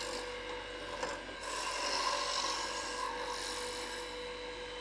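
Wood lathe running with a steady hum while a roughing gouge shaves a bone-dry spindle blank round: a rough, rasping scrape of the tool on the spinning wood.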